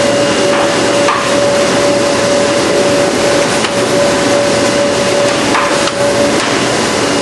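Sheet-feeding machinery on a printing line running loudly: a dense, steady clatter with one constant humming tone and a few faint clicks.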